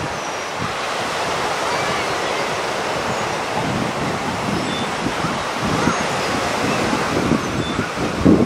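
Lake Michigan surf: small waves breaking and washing steadily on the beach, with wind buffeting the microphone.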